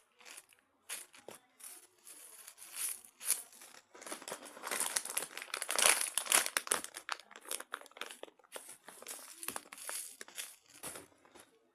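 Crinkling and rustling as squishy toys are rummaged through and handled, in irregular bursts that are loudest about five to seven seconds in.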